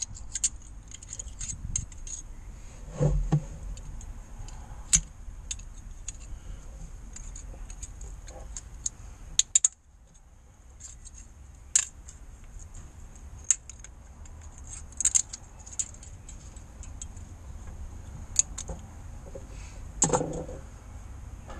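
Metal scraper scraping and clicking against the engine block's sealing flange around the crankshaft, cleaning the mating face before a new crankshaft oil seal goes in. Irregular sharp metallic scrapes and ticks, with a couple of duller knocks, one about three seconds in and one near the end.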